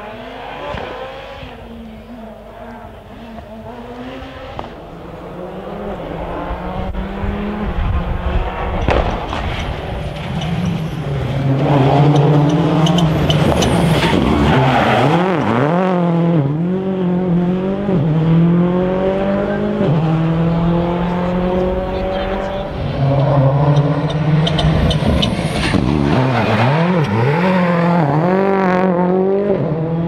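Rally cars at full throttle through a tight bend: engines revving high, pitch climbing and dropping with quick gear changes, tyres squealing as the cars slide out of the corner. It gets louder about a third of the way in, when a Ford Focus WRC comes through close by.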